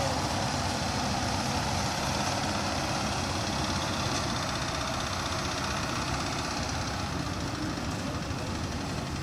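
Kubota DC75 combine harvester's diesel engine running steadily, an even engine drone with a hiss of machinery noise, easing off a little near the end.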